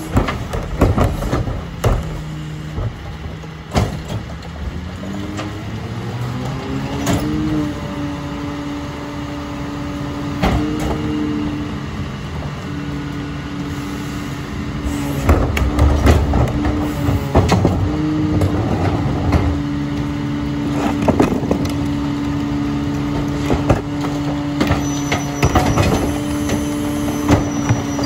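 McNeilus rear-loader garbage truck on a Freightliner Econic chassis: its engine speeds up about six seconds in and holds a steady raised speed, as it does to drive the hydraulic packer. Repeated clanks and knocks run through it, typical of the compaction cycle.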